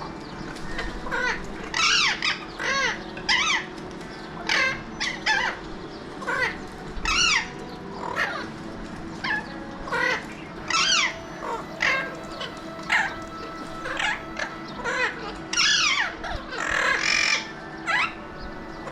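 Alexandrine parakeets calling back and forth, a steady run of short, loud squawks sweeping downward in pitch, about one or two a second.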